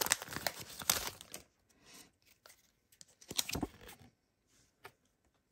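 Foil booster-pack wrapper crinkling and tearing as the pack is opened, for about the first second and a half, then another brief rustle about three and a half seconds in.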